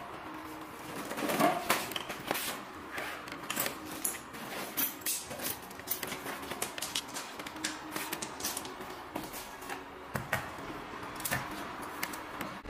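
Plastic accessory bag crinkling and parts being handled: irregular rustles and clicks, with a few louder knocks a second or two in.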